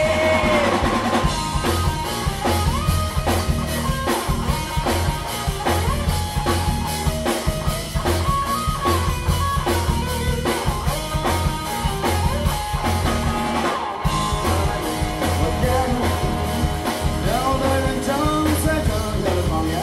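Grunge rock band playing live: electric guitar, bass guitar and drum kit driving through an instrumental passage between sung lines, with a steady drum beat and bending guitar notes.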